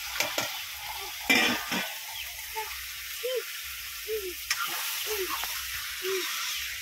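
Raw chicken pieces sizzling in hot oil and fried masala in a steel kadai, stirred and scraped with a steel ladle, with a louder burst of sizzle and scraping just over a second in.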